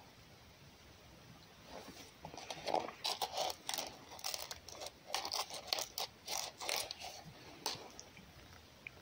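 A red fox eating at a feeding board close to the microphone: a run of irregular crunching and scraping sounds that starts about two seconds in and stops near the end.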